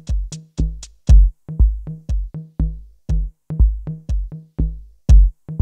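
Electronic background music with a steady drum-machine beat of deep kick drums and sharp clicks.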